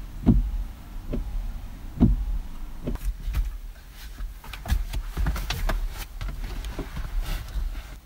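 Dull thumps and knocks inside a car's cabin: four single thumps about a second apart, then from about three seconds in a quicker, irregular clatter of knocks and sharp clicks.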